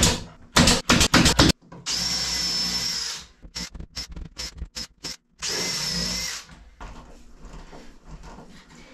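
Pneumatic brad nailer firing a quick run of sharp shots, tacking wooden spacer blocks in place, with more short sharp shots a few seconds later. Two steady power-tool runs of about a second each, carrying a high whine, come between them.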